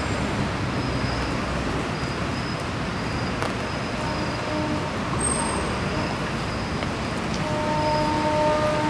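Steady city traffic noise: a continuous roadway rumble and hiss with faint tones from passing vehicles coming and going.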